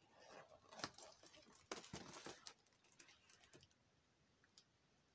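Faint clicks and crinkles of scissors cutting a strip of thin green plastic film (headlight tint film) and handling it. Most of the sounds fall in the first two and a half seconds, with a few isolated clicks later.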